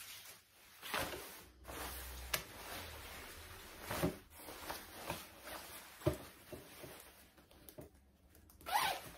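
Plastic garbage bag and clothing fabric rustling as garments are pulled out of the bag and handled, in irregular brushing and crinkling strokes, the loudest near the end.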